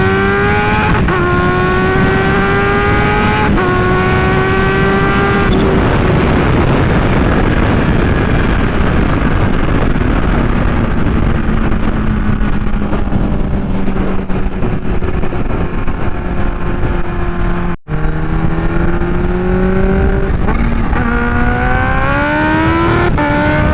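Kawasaki Ninja H2's supercharged inline-four engine through an unbaffled Vandemon exhaust, accelerating hard up through the gears. The pitch climbs and drops at a gear change about every two seconds. Then it holds a steadier, slowly falling note under a rush of wind, and near the end it revs up again with more quick changes in pitch.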